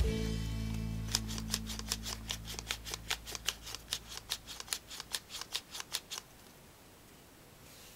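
Origami flapping crane being flapped by hand: quick dry paper clicks of the folded wings, about four to five a second, stopping about six seconds in. Under the first part, the last low chord of background music dies away.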